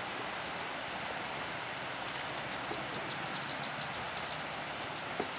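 Steady rushing hiss of hot-spring water running over travertine terraces. A quick run of high chirps comes in the middle, about six a second, and a single sharp tick comes near the end.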